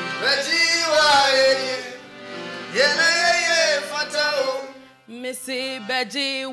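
Piano accordion playing sustained chords under a singing voice, with a steady low bass note beneath. About five seconds in the singing drops out and the accordion plays a run of short, choppy chords.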